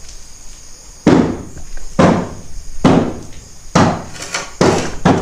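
Five heavy thuds, evenly spaced a little under a second apart, each dying away quickly.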